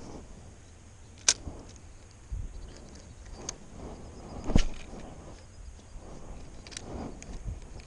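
Spinning rod and reel handled during a recast: four sharp clicks, the loudest about a second in and just past halfway, with clothing rustle between.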